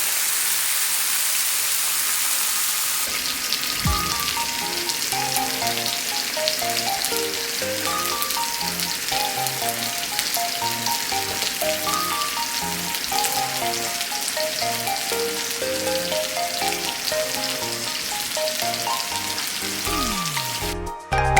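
Marinated beef sizzling on a Korean barbecue grill, a steady crackling hiss. Bright electronic background music comes in over it about three seconds in.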